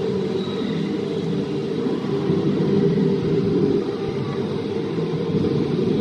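Indoor river raft ride rumbling steadily as the raft floats through the water channel, with the rush of the ride's artificial waterfalls.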